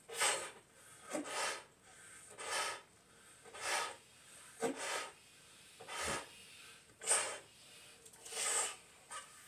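A person inflating a large clear bobo balloon by mouth: repeated breathy puffs of air, about one a second, as breaths are blown through the neck into the balloon.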